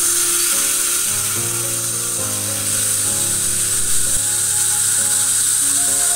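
Background music with a steady high-pitched whine and hiss from a dental high-speed handpiece cutting away tooth decay and old filling material.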